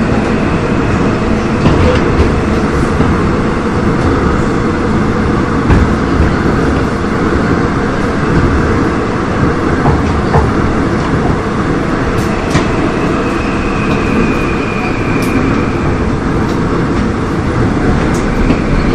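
Seoul Subway Line 5 train with ABB GTO VVVF traction equipment running between stations, heard from inside the car: a steady rolling rumble with a few sharp clicks, and a faint high tone that swells and fades about two-thirds of the way through.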